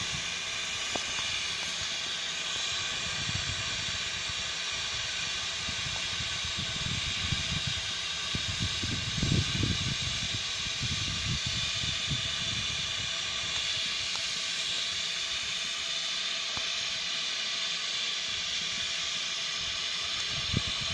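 Steam hissing steadily from GWR Modified Hall 4-6-0 steam locomotive 6960 Raveningham Hall standing with its train, an even high hiss throughout. Uneven low rumbles come and go between about three and thirteen seconds in.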